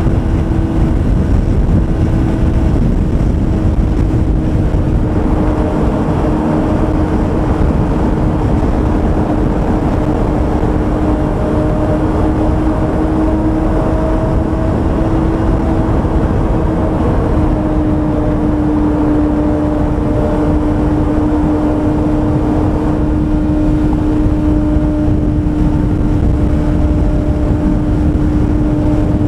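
Kawasaki ZX-25R's 249 cc inline-four running at a steady high cruise through an SP Tadao aftermarket exhaust. It holds one engine note that dips slightly in pitch a little past the middle, over a steady rush of low wind noise.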